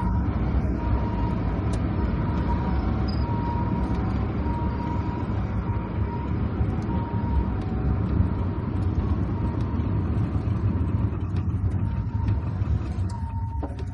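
Steady low rumble of a car driving on a wet road, engine and tyre noise. Over it, faintly, a two-tone hi-lo emergency siren alternates between its two notes about every second and a half, and it fades away near the end.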